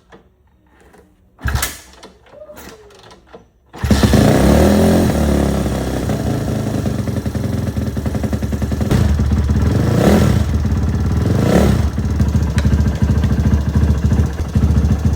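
A freshly fitted Ohvale GP-0 160 minibike engine fires up for the first time about four seconds in, after a clunk. It then runs steadily, with a few short blips of the throttle near the end.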